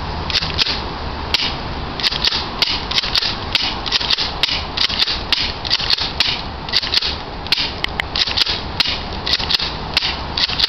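BB-firing toy shotgun, orange-tipped, shooting repeatedly: sharp snaps and clacks, a few at first, then about three a second from about two seconds in.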